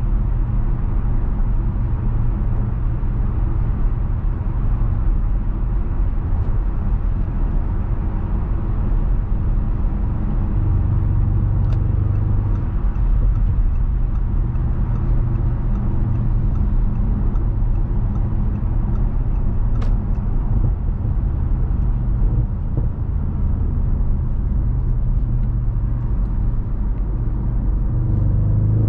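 2015 Audi RS6 Avant's twin-turbo V8 running steadily while the car is driven at an even throttle, along with low road rumble. The engine note shifts only slightly, with no hard revving.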